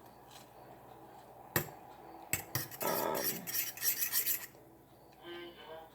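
Kitchen utensil knocking against a cooking pot twice, then scraping and clattering rapidly for a second or two.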